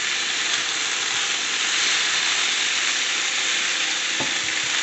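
Chicken pieces sizzling steadily in hot oil in a frying pan as they brown.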